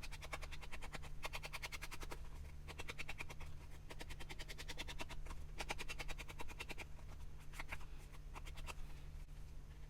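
Rapid back-and-forth scrubbing of a craft tool on paper, in short bursts of quick even strokes, over a steady low hum.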